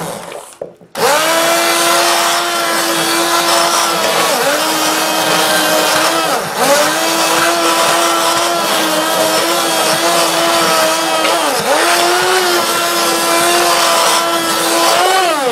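Handheld immersion blender running in a pot of potato soup: a steady motor whine that dips briefly in pitch three times as the blade works through the potatoes. It stops for a moment just before starting again about a second in, and cuts off at the end.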